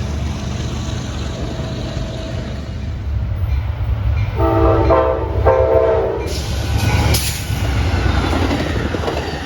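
Locomotive air horn sounding two short blasts about four and a half seconds in, a horn salute from the crew. Under it runs the steady low rumble of the passing train.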